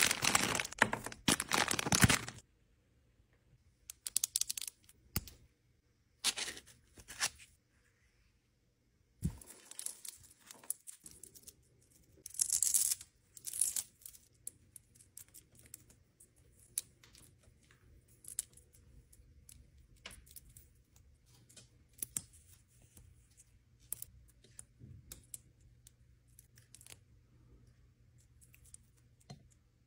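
Clear plastic packaging crinkling and rustling as a beaded phone charging cable is unwrapped, loudest in the first two seconds, then in scattered short bursts. Later come small, sparse clicks and taps from the cable and its plastic beads being handled.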